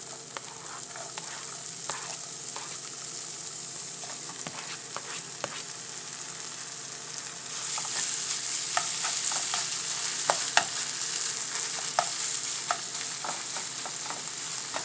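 Diced bell peppers and raw cubed chicken sizzling in melted butter in a skillet, with the spatula scraping and clicking against the pan. The sizzle gets louder about halfway through as the raw chicken goes in.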